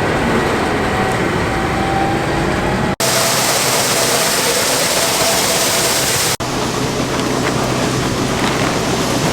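Heavy farm machinery running loudly, heard in three short clips that cut abruptly about three and six seconds in. The middle clip is dominated by a bright, steady hiss.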